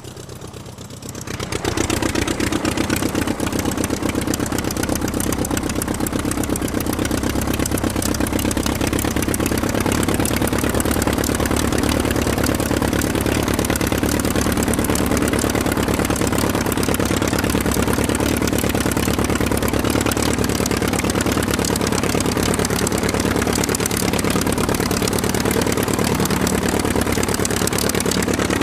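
Aircraft engine running steadily at a constant speed. It is quieter at the start and comes back up to full level about two seconds in.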